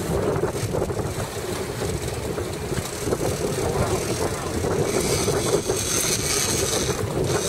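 Fishing boat's engine running, with wind on the microphone. About five seconds in, a high steady whine joins and breaks off briefly shortly before the end.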